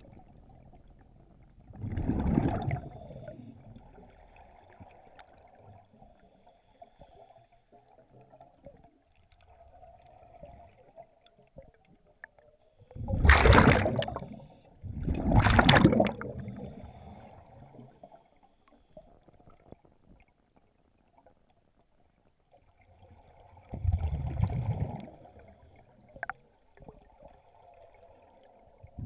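Scuba regulator exhaust bubbles heard underwater: four bursts of exhaled bubbles, each about a second and a half long, two of them close together about halfway, with a faint low wash between them.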